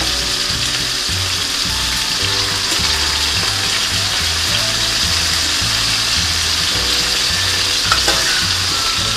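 Chicken pieces frying in hot oil in a frying pan: a steady sizzle.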